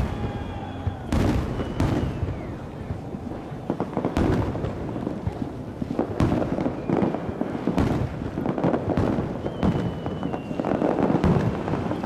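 New Year fireworks going off: repeated sharp bangs of bursting shells over continuous crackling, with a few short whistles, one falling in pitch.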